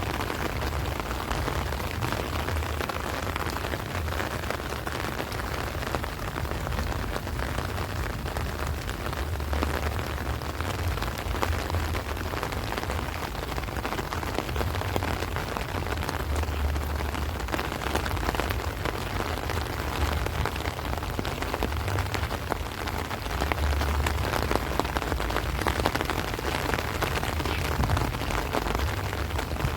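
Heavy rain falling steadily on rice plants and trees, a dense even hiss, with gusts of strong wind rumbling on the microphone now and then.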